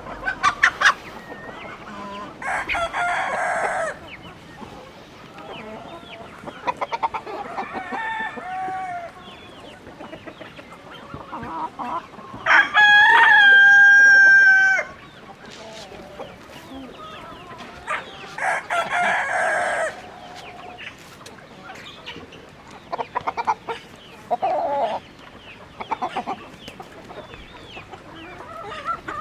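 Chickens clucking on and off, with a rooster crowing once, long and loud, about halfway through.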